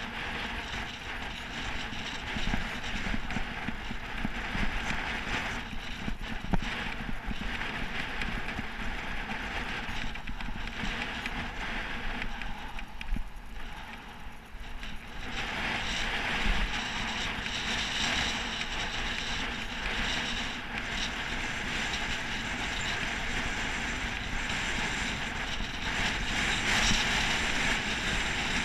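Wind rushing over a helmet-mounted GoPro's microphone while riding a road bike, with tyre and road noise underneath. It dips briefly just before halfway, then runs louder through the second half.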